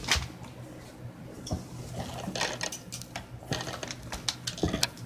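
A run of irregular clicks and knocks: handling noise from a phone being moved and jostled.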